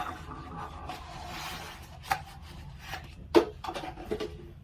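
Doorbell parts and packaging being handled on a table: a stretch of rubbing about one to two seconds in, then a few sharp clicks and knocks, the loudest about three and a half seconds in.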